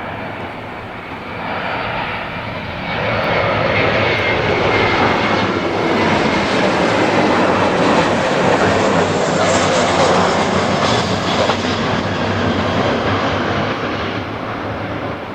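Jet airliner's engines running as the aircraft flies past, the roar swelling about three seconds in, holding loud, then easing slightly near the end.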